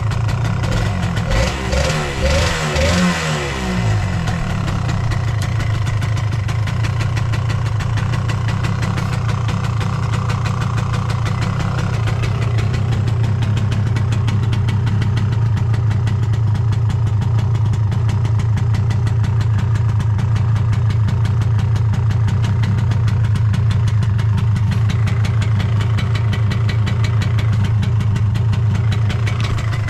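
1987 Yamaha SDR200's single-cylinder two-stroke engine blipped a few times on the throttle about one to four seconds in, then idling steadily. The seller describes it as free of abnormal noises and revving up cleanly.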